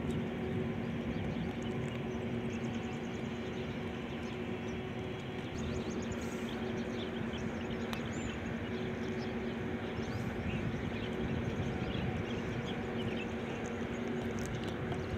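Steady low mechanical hum with rumble, holding two even tones, with faint bird chirps around the middle.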